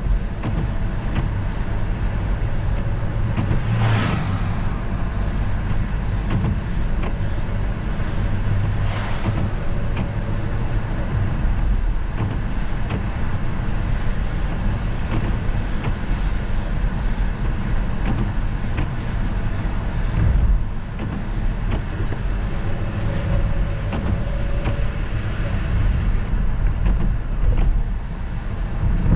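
Steady rumble of a car driving on a wet street, heard from inside the cabin: engine and tyre noise on wet pavement. Two brief swishes come a few seconds in, about five seconds apart.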